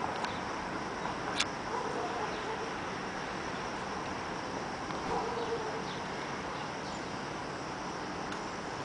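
Crickets chirring steadily in an outdoor evening ambience. A faint distant sound comes twice, about two and five seconds in, and a sharp click sounds about a second and a half in.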